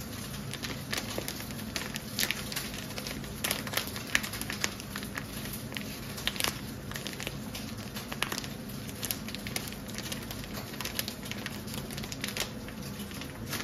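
Plastic microwave-rice pouch crinkling with many small irregular crackles as it is squeezed and handled in the hands, then torn open at the corner near the end.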